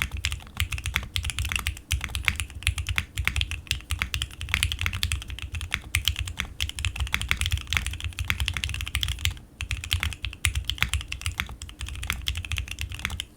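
Fast, continuous typing on a SINGA Unikorn 2.1 custom mechanical keyboard with lubed, filmed Alpaca linear switches on an FR4 plate and GEEKARK keycaps, with a brief pause about nine and a half seconds in.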